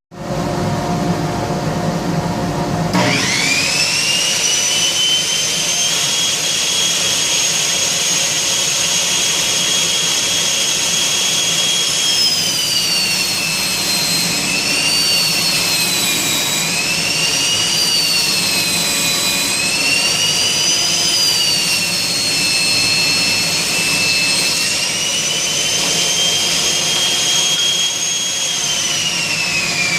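Delta 34-670 table saw running: a high whine comes up to speed a few seconds in and holds steady. From about 12 to 25 seconds the pitch dips and wavers as the blade is loaded in a test cut. It then recovers and starts to wind down near the end.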